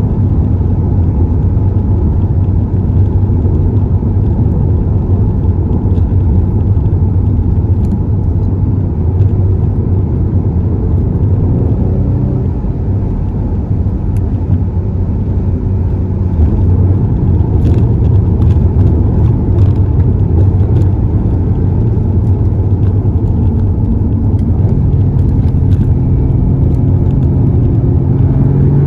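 Steady drone of a moving car heard from inside the cabin: engine and road noise. Near the end the engine note rises as the car accelerates.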